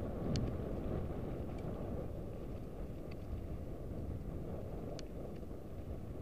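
Wind rumbling on the microphone of a camera carried on a moving mountain bike, with a few sharp clicks from the bike scattered through it.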